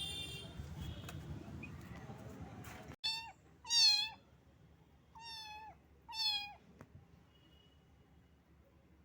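A small kitten meowing four times in short, high calls, the second the loudest, after a few seconds of steady background noise that cuts off abruptly.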